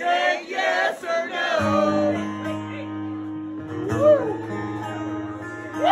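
Live solo acoustic guitar with a man singing: a few short sung phrases, then a guitar chord left ringing from about a second and a half in, with brief gliding vocal notes over it.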